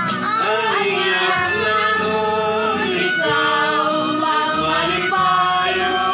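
Several men and women singing together over recorded backing music from a portable speaker.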